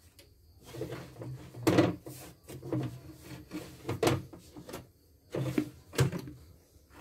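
Plastic embroidery hoop being handled and unclipped from the arm of a CNY portable embroidery machine: a few irregular plastic clicks and knocks, the loudest about two seconds in.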